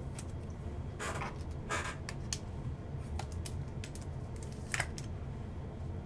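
Plastic and card stock rustling and scraping as an autographed trading card is slid into a clear rigid plastic holder, with short scrapes about one second, two seconds and nearly five seconds in, and a few faint clicks.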